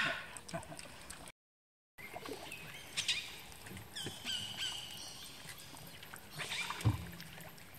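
Birds calling from the mangroves: a few short high chirps and a quick run of high notes, with a single low knock near the end. About a second in the sound drops out to silence for just over half a second.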